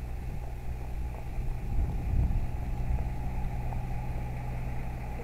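Heavy lorry's diesel engine running steadily as the lorry comes slowly closer along the lane.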